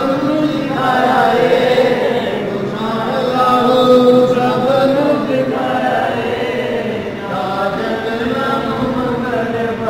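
A group of men chanting devotional recitation together at a shrine, in long held melodic phrases that carry on without a break.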